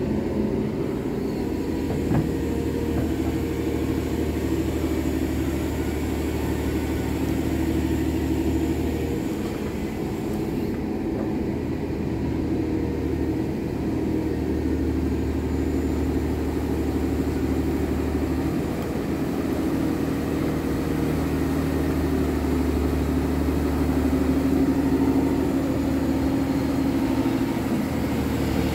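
Excavator's diesel engine running steadily, its low note easing off briefly about ten seconds in, as the machine's bucket digs through a beaver dam.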